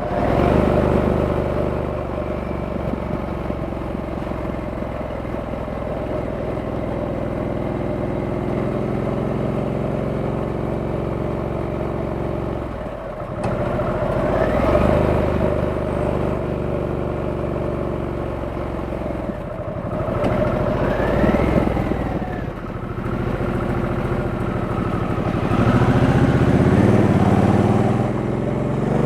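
Stock 2023 Harley-Davidson Sportster S's 1250 cc V-twin running under way. It holds a steady cruise, then twice briefly drops off about thirteen and twenty seconds in, as for a gear change, before pulling up again. It accelerates, rising in pitch, near the end.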